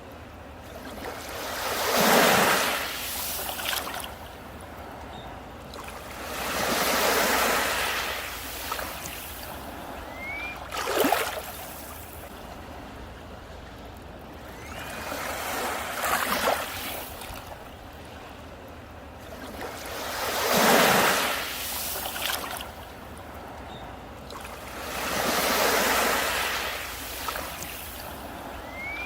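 Sea waves breaking and washing up on a beach, one after another about every four to five seconds, each swelling and fading away.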